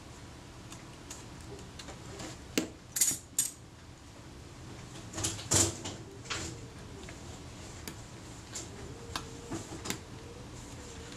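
Small metal clicks, taps and scrapes as a jeweller's screwdriver and fingertips work a Kodak Retina Reflex IV's rewind shaft into place in the camera body. The sharpest clicks come in two bunches in the first half, with lighter ticks later.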